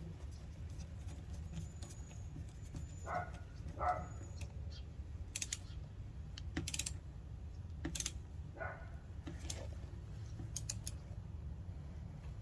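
Scattered light clicks and taps of a screwdriver and small metal parts being handled, over a steady low hum, with a few short squeaks.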